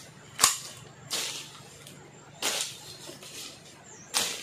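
A long-handled weeding blade swung through weeds and grass: four swishing cuts at uneven intervals, the first the sharpest and loudest.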